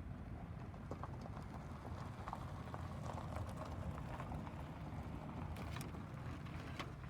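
Wood fire crackling and popping in a homemade tower-type fire pit during a burn test, with scattered sharp cracks that come thickest in the middle, over a low steady rumble.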